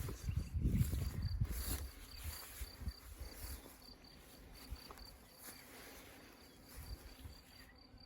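A cricket chirping in short, even pulses at one high pitch, about three a second. Low thumps and rustling sound in the first two seconds.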